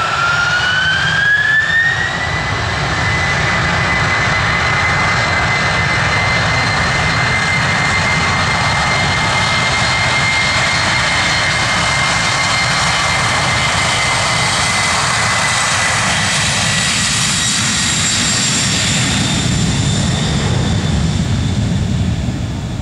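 Lockheed C-5M Super Galaxy's four General Electric F138 (CF6-80C2) turbofans spooling up to takeoff thrust as the aircraft rolls down the runway. Their whine rises over the first two seconds, then holds steady and loud under a heavy engine rumble.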